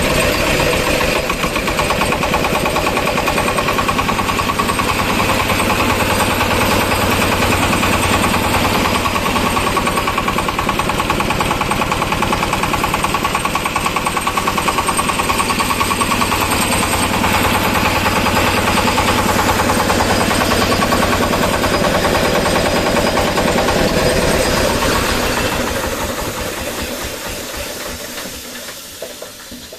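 Jiang Fa ZS1115D single-cylinder diesel engine running steadily with a rapid, even knock. About 24 seconds in its firing begins to thin out, and the engine runs down and dies away over the last few seconds.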